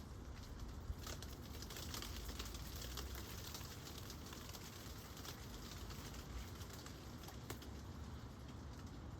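Gentle rain falling steadily: a soft hiss with many scattered drops ticking on a hard surface, a little denser about a second in, over a low steady rumble.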